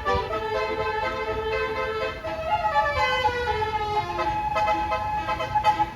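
Multi-tone 'telolet' (basuri) bus horn with 36 notes, playing a melody of several tones at once that step from note to note, one line gliding downward midway; it cuts off at the end.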